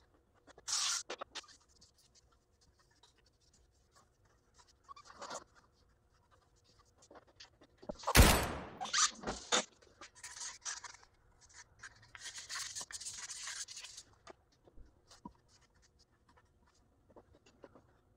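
Wheel being cleaned after scuffing with sandpaper, with scattered scratchy rubbing and short hissing sprays. A loud burst of hissing comes about eight seconds in, followed by a few shorter ones. A steady hiss lasts about two seconds a little past twelve seconds in.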